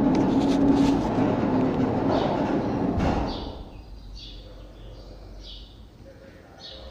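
Peccinin electric sliding-gate opener running, the steel gate rumbling along its track with a steady low hum, then cutting off about three seconds in as the gate reaches the closed position. Afterwards faint bird chirps.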